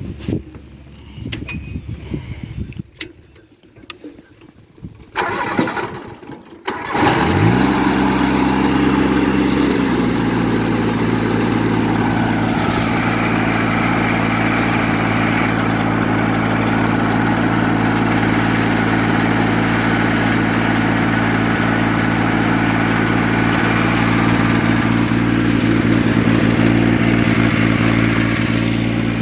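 John Deere 322 lawn tractor's three-cylinder engine cranked over and starting about seven seconds in. It briefly runs at a higher speed, then settles to a steady idle, circulating fresh oil to fill the new oil filter after an oil change.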